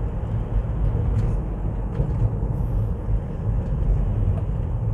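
A vehicle on the move: a steady low rumble of engine and road noise, even in level throughout.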